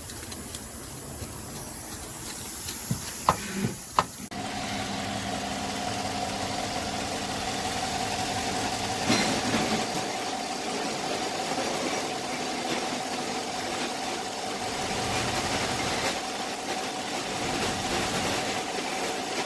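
Chevrolet 5.3 V8 running at idle. It sets in abruptly about four seconds in, after a couple of sharp clicks, and then runs steadily. The engine has a misfire and a failed lifter that does not hold pressure.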